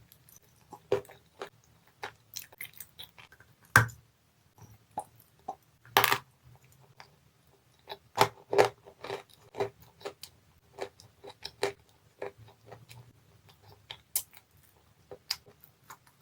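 Dry, chalky edible clay being bitten and chewed close to the microphone: irregular sharp crunches and crackles, with a few louder snaps about 4, 6 and 8.5 seconds in.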